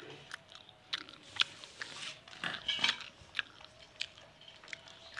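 Scattered small clicks and crunchy taps at irregular intervals from a baby monkey fiddling with a steel bowl on a woven rope cot.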